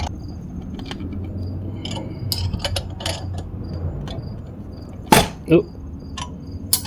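Metal clicks and clinks from a three-jaw puller being cranked on a QS138 hub motor to pull its silicone-sealed back cover off, with a few sharper knocks about five seconds in and near the end. A faint high chirp repeats about twice a second behind it.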